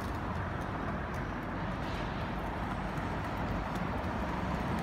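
Steady rush of wind noise on a handheld phone's microphone as it is carried at a run along a street.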